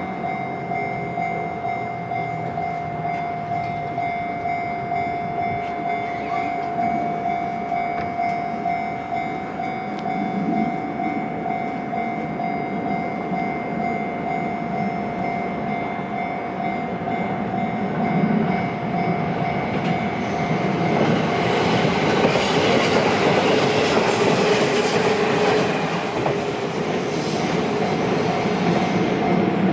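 Level-crossing warning bell ringing on a steady pitch while a train passes over the crossing. The train's running noise swells from about twenty seconds in and stays loud to the end.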